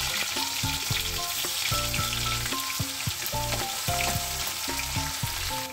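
Cumin seeds, chopped garlic and spring onion greens sizzling in hot mustard oil in a kadhai and stirred with a wooden spatula. Background music with held notes and a bass line plays underneath.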